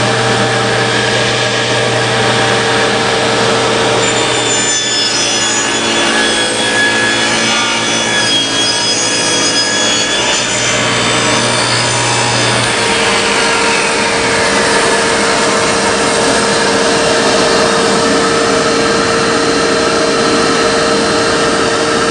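Table saw running and cutting through a glued-up wood block pushed on a sled, a loud, steady sawing noise throughout.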